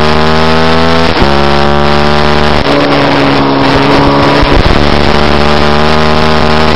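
Middleweight supersport race motorcycle engine at high revs, heard from an onboard mount with wind rushing past. The note climbs, breaks briefly for an upshift about a second in and climbs again; about two and a half seconds in the throttle closes and the note drops to a lower, rougher sound that sinks slowly as the bike slows and leans into a corner.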